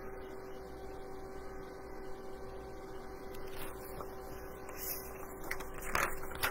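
Steady electrical hum over faint room hiss, with a brief rustle about five and a half to six seconds in.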